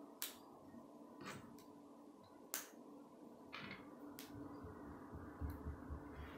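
K'nex plastic rods and connectors being snapped together by hand: a series of six or seven sharp clicks, the loudest near the start and about two and a half seconds in. Low handling rumble of plastic pieces near the end, over a faint steady hum.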